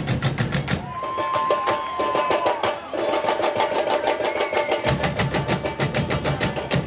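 Samba batucada drum ensemble playing a fast, driving rhythm of snares and other drums. The deep bass drums drop out about a second in and come back in near the five-second mark, while a long held note sounds over the break.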